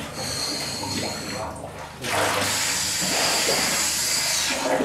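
Scuba diver submerging in a flooded tunnel: air bubbles and churned water hissing at the surface. A lighter hiss at first, then a louder, steady rush of bubbling from about two seconds in that stops shortly before the end.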